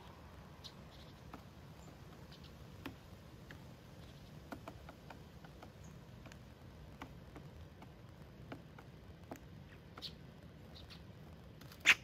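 Birds pecking and moving about on a feeder: irregular light taps and clicks, with one sharp, louder knock just before the end, over a faint steady low hum.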